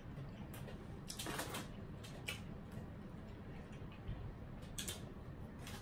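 Quiet eating sounds: chewing chicken nuggets, with a few faint scattered clicks and mouth smacks over a low room hum.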